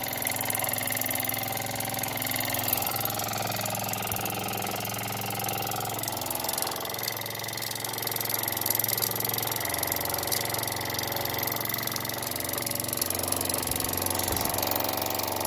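Wilesco toy steam engine running from cold, its flywheel spinning steadily, with ticking and clattering and the spitting and sputtering of steam and condensate typical of a cold start.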